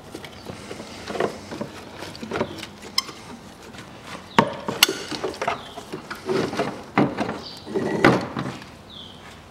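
Car alternator being worked out of the engine bay by hand: irregular knocks and scraping of its metal and plastic housing against brackets and hoses, with several sharp clicks.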